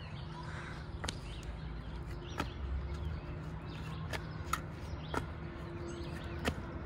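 A child's foam clogs slapping on the asphalt court as he hops along a hopscotch grid: about six short, sharp landings at uneven intervals, over a steady low hum.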